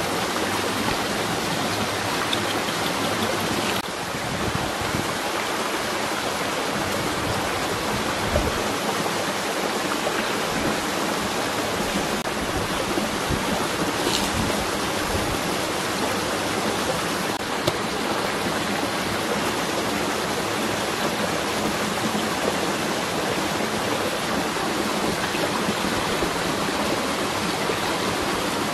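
Steady rushing of running water, like a stream or small waterfall, holding an even level throughout.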